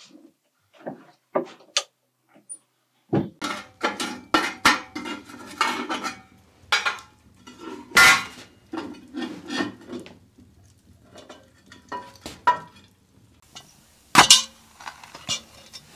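Cast iron Dutch oven and lid clanking and scraping as they are handled with a metal lid lifter, with many small knocks and one loud clank about 8 seconds in. A second sharp clank comes near the end as the lid is lifted from the pot.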